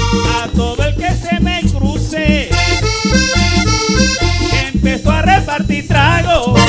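Colombian tambora band music played live: a lead melody with some gliding notes over a steady drum beat and bass.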